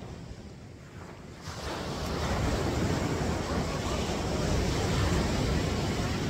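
Ocean surf washing onto the beach, with wind on the microphone. The rushing noise gets suddenly much louder about a second and a half in and stays loud.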